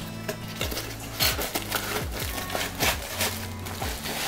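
A small cardboard box is handled and its inner tray slid out of the sleeve by hand, giving short cardboard scrapes and rustles. Background electronic music with a steady bass beat plays throughout.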